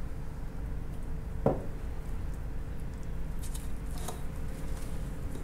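Chef's knife cutting a piece of cooked lobster meat on a wooden cutting board: a sharp tap about a second and a half in, then a few soft knocks of the blade on the board near the end, over a steady low room hum.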